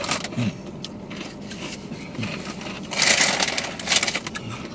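Foil chip bags of Takis crinkling and rustling as hands dig into them, loudest for about a second some three seconds in, with scattered crackles before.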